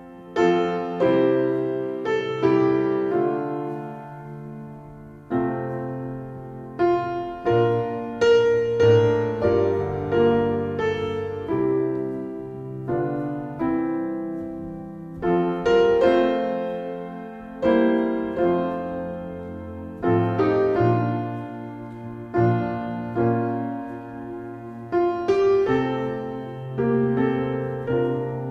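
Slow solo piano music: notes and chords struck every second or two and left to ring and fade.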